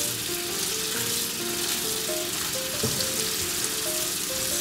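Tap water running and spraying onto spinach leaves and button mushrooms in a colander as they are rinsed, a steady hiss.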